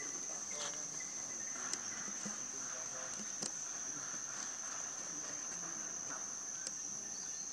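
Forest insects, such as crickets or cicadas, keeping up a steady high-pitched drone on one unchanging pitch, with a few faint ticks over the top.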